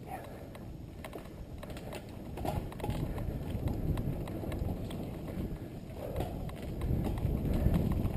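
Mountain bike ridden fast over a dirt singletrack, heard from a helmet-mounted camera: a steady low rumble of tyres and wind on the microphone, with many rattling knocks from the bike over bumps. It grows louder from about two seconds in.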